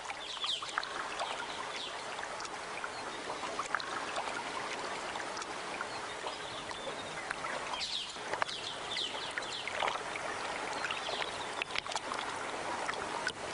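Water in a shallow tank splashing and trickling as hands move through it: a steady watery hiss with a few brief splashes, the clearest about eight seconds in.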